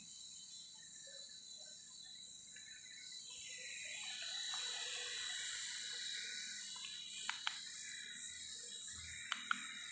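Small battery-powered toy RC helicopter flying, its electric motor and spinning rotors giving a steady high-pitched whine that grows a little louder a few seconds in as it comes nearer. A few sharp ticks sound near the end.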